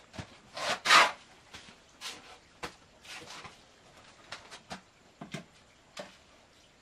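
A hand tool scraping and knocking against concrete blocks in short irregular strokes, the loudest a scrape of about half a second about a second in.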